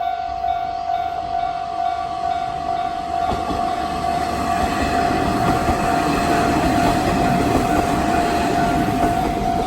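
Two Japanese level-crossing alarms ringing at once, each with its own tone: a JR standard-type alarm and an ordinary-type alarm. Their rapid repeating bell tones go on throughout, and from about four seconds in a passing train's rumble rises underneath them.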